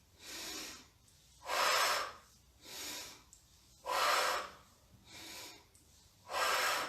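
A woman taking slow, deep, audible breaths in and out as part of a breathing exercise for the lungs. Each loud breath alternates with a softer one, about every two and a half seconds, three cycles in all.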